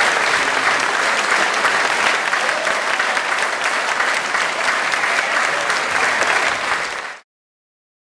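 Theatre audience applauding, a dense and steady clapping at a curtain call, which cuts off suddenly near the end.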